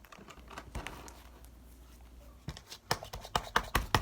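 Faint rustling, then from about two and a half seconds in a quick, irregular run of sharp clicks and taps, several a second, of hands handling something hard.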